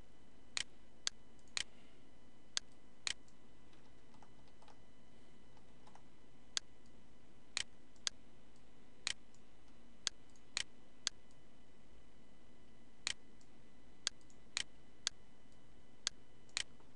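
Computer mouse button clicks at irregular intervals, about eighteen in all, as vertices are selected and dragged, over a faint steady hum.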